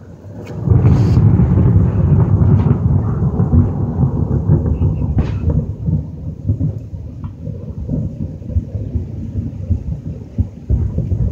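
Thunder: a loud low rumble breaks in under a second in and rolls on, slowly easing off.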